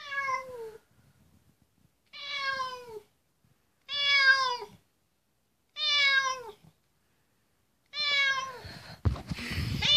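Domestic cat meowing over and over: about six long meows roughly two seconds apart, each falling in pitch.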